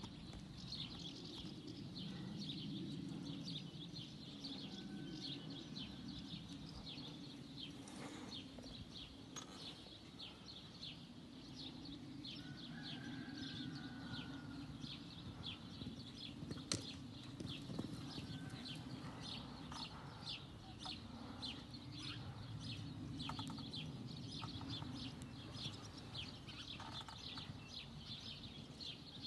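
Outdoor ambience: a high, rapid chirping repeating a few times a second without pause, over a low steady rumble, with a couple of faint whistled bird notes.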